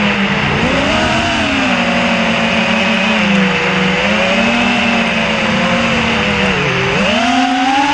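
Brushless motors and propellers of a 3D FPV quadcopter whining in flight, the pitch dipping and rising with throttle changes, with a deep dip a little before the end followed by a climb.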